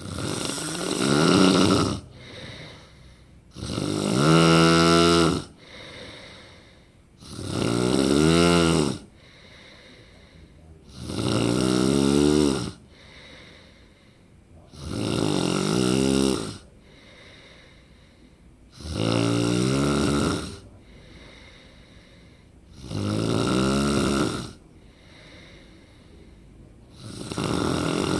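A person snoring loudly in a steady rhythm: eight long snores, one about every four seconds, each lasting about a second and a half, with quiet breathing between them.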